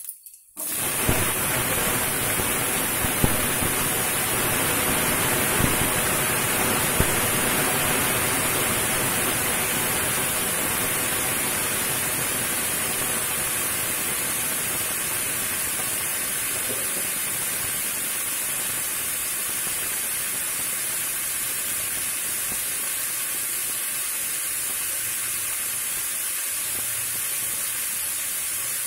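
Chopped raw banana pieces dropped into hot oil in a frying pan: a sudden loud sizzle about a second in, settling into a steady hiss that slowly fades. A few sharp pops of spattering oil come in the first several seconds.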